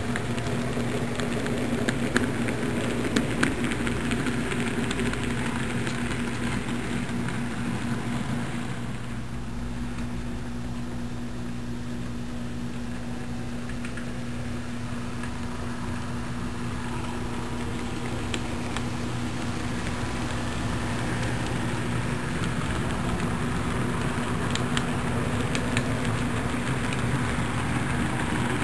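HO scale model freight train running on its track: small wheels clicking over the rail joints over a steady hum. It is louder while the cars roll close by at the start and near the end, and quieter in between.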